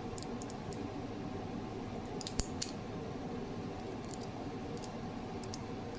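Small metallic clicks and scrapes of a shim cut from steel measuring tape being worked around a padlock's shackle, with a few sharper ticks about two and a half seconds in, over a steady background hum.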